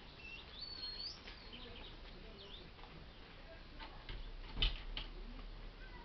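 Small birds chirping with a few quick whistled glides in the first second or two, over light ticking, then a single sharp knock about four and a half seconds in, the loudest sound.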